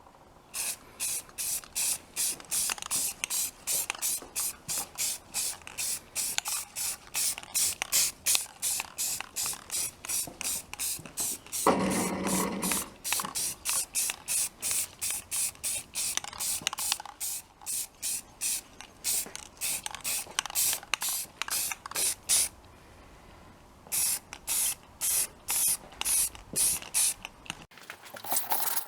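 Aerosol spray-paint can spraying in many short, even bursts, about two or three a second, with a short pause near the end. A brief duller sound comes about midway.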